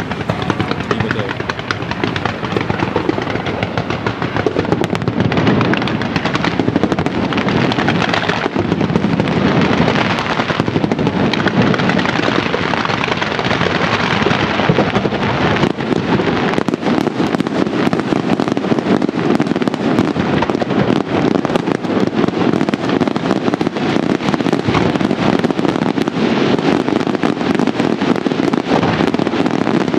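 Fireworks display: a dense, continuous barrage of rapid cracks and bangs, with no pauses.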